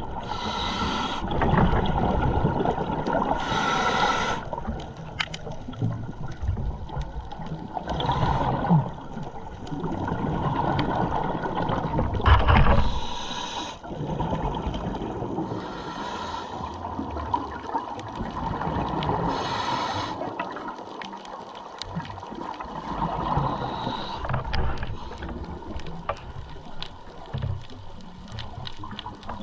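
Underwater breathing of a scuba diver: a loud rushing, bubbling surge from the regulator every three to four seconds, over a steady water noise with faint crackling clicks.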